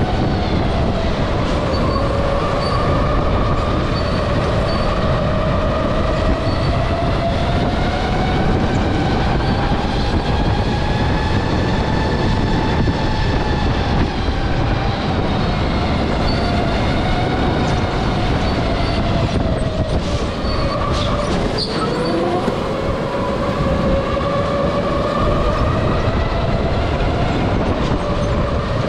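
Electric go-kart motor whining under way, its pitch slowly rising and falling with speed over a steady rushing noise. About three-quarters of the way through the whine drops sharply, with a brief click, then climbs again.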